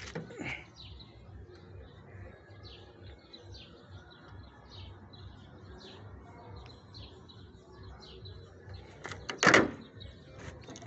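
Car bonnet of a Fiat Palio slammed shut about nine and a half seconds in: one loud, sharp thud.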